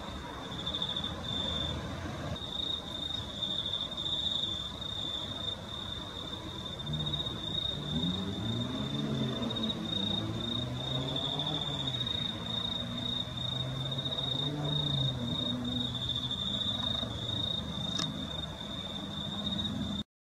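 Crickets chirping in a steady high trill on a night recording. From about seven seconds in there is a faint low wavering sound underneath, and a single click near the end just before the sound cuts off abruptly.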